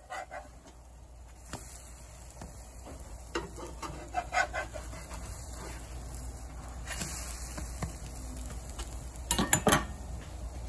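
Metal spatula scraping and clacking on a flat griddle while pancakes are flipped: scattered sharp taps, with a quick cluster of loud clacks near the end, over a steady low hum.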